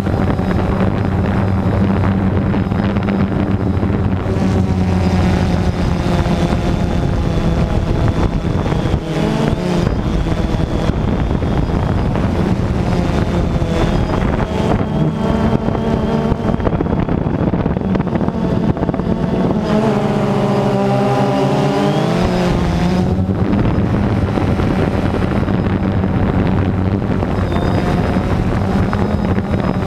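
Multirotor drone's electric motors and propellers heard from its onboard camera, a steady buzzing hum with wind rushing over the microphone. The pitch wavers about nine seconds in and again around twenty seconds in as the motor speeds change.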